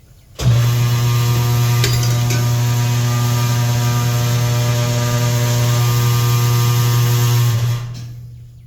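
Electric tire changer motor (Katool KT-T800) switching on and running with a loud, steady hum while the machine turns the wheel to take a dirt bike tire off its rim, then switching off and winding down near the end. Two faint clicks about two seconds in.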